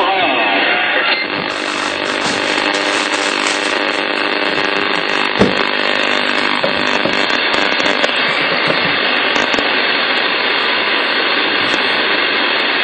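Loud, steady rushing static from a CB radio's speaker, the receiver tuned to 27.085 MHz AM, with faint steady whistling tones buried in the hiss. There is a single click about five seconds in.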